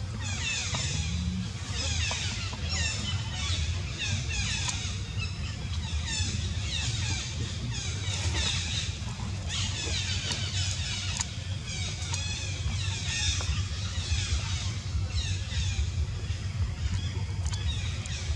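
Outdoor ambience: clusters of short, high chirps falling in pitch, several a second, over a steady low rumble.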